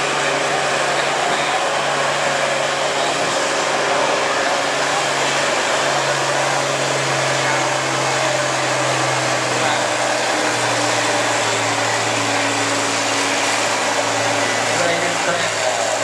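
Turbocharged International Harvester diesel tractor engine running flat out under heavy load while pulling a weight sled, a loud steady drone with a rushing noise over it. The engine note climbs slightly about six seconds in, then drops a little past the middle.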